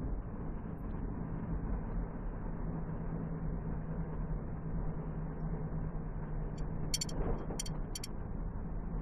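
Steady engine and road noise heard from inside a moving car's cabin, with a low hum. Three short sharp clicks sound close together near the end.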